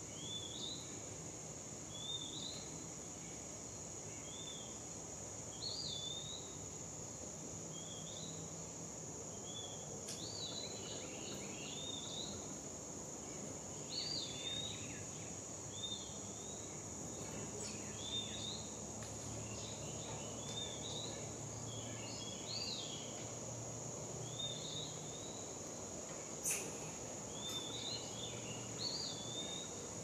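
Steady high-pitched insect drone, with a bird's short chirps repeating every second or two and a sharp click near the end.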